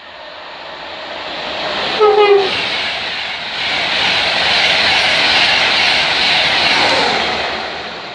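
A train passes through the station at speed, its noise building, peaking and fading away. About two seconds in the driver sounds one short, last-minute horn blast, its pitch dipping slightly.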